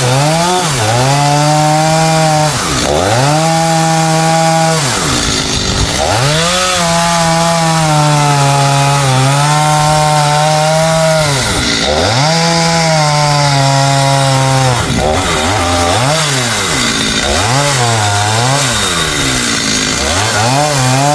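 Two-stroke chainsaw cutting a tree. It is held at high revs for stretches of one to five seconds, and its pitch drops sharply back between cuts several times. Near the end come quicker rev-ups and drops.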